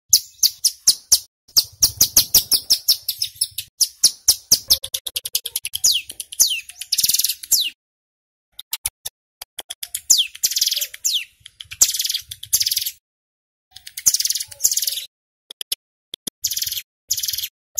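Ciblek gunung, a prinia, singing loudly: rapid runs of sharp, high chipping notes, some sweeping down in pitch, broken by dense buzzy rattles (the 'bren'). There are short pauses about eight and thirteen seconds in.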